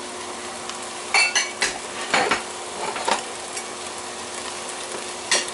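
Sliced onions and red and green bell peppers sizzling in a skillet with seared steak, with a few clinks and scrapes of a metal spoon against the pan.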